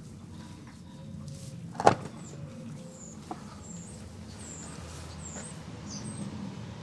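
One sharp, loud knock about two seconds in, over a steady low rumble, while small birds give short high chirps every half second or so through the middle.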